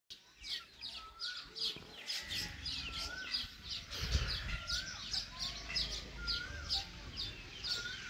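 A baya weaver colony calling: a busy run of short, high chirps, about three a second, with a short rising-and-falling whistle repeating roughly every second and a half. A low rumble sits underneath from about two seconds in.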